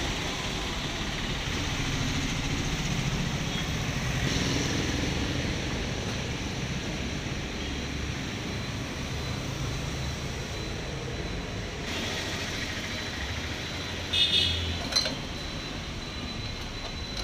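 Steady traffic and street noise, with two short clicks about 14 and 15 seconds in.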